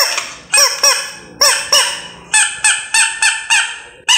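Rubber chicken toy squeezed over and over, letting out a rapid run of short honking squawks, about eleven of them, bunched in twos and threes.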